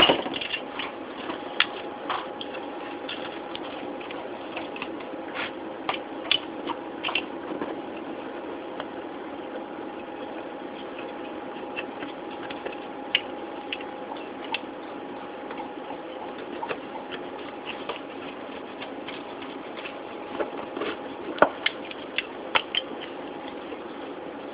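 Wheel pizza cutter rolling through a baked crust, with scattered light clicks and scrapes as the blade meets the metal sheet pan, over a steady background hum with a faint held tone. A sharp clank right at the start.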